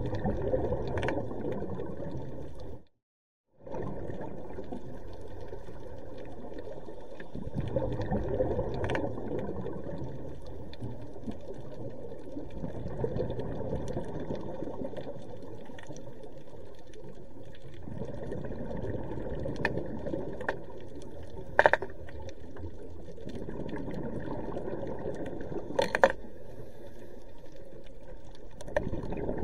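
Underwater sound heard through a camera housing: a scuba diver's breathing bubbles swell and fade every few seconds over a steady muffled crackle. There are a few sharp knocks, two of them the loudest sounds, in the second half.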